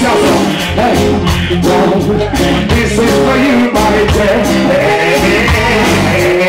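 Live reggae band playing loud: a steady drum beat, bass and electric guitar, with a male singer's voice on a microphone over it.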